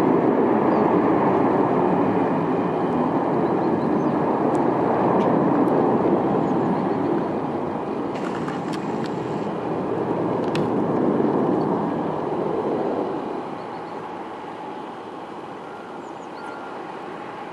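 A Boeing 747-400 freighter's four jet engines at takeoff power as the aircraft climbs away: a loud, even jet rumble that fades noticeably about thirteen seconds in as the plane recedes.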